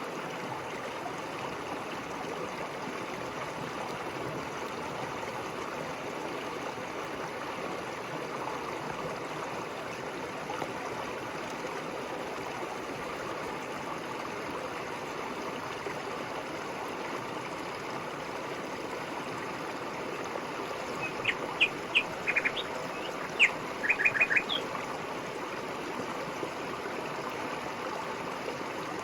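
River water flowing with a steady rushing sound. About two-thirds of the way in, a small bird gives two quick bursts of short, high chirps that stand out above the water.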